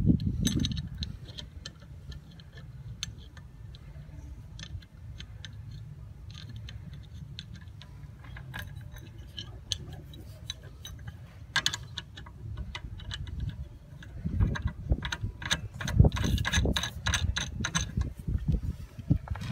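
Scattered small metallic clicks and clinks of bolts, washers and nuts being handled and fitted by hand to a tank outlet's bolted coupling, coming in denser clusters in the second half, over a steady low rumble.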